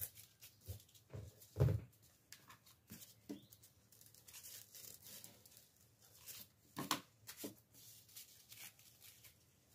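Paper rustling and crinkling as hands handle crepe paper and a paper cutout, with scattered light clicks and knocks. The loudest, a soft thump, comes about a second and a half in, and another knock comes near the seven-second mark.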